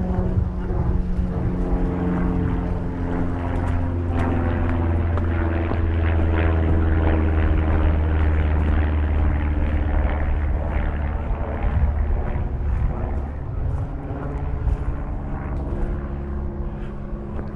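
Propeller aircraft engine droning steadily, its pitch shifting a few times.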